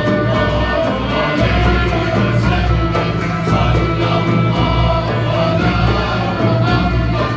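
A male choir singing in unison with a Turkish ensemble of oud, kanun, ney, violin and frame drum, the drum keeping a steady beat underneath.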